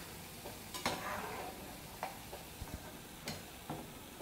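Freshly fried, crisp ribbon pakoda (gram-flour strips) handled on a ceramic plate: faint crackling with a few sharp clicks about a second apart. It is the crunchy sound of well-crisped pakoda.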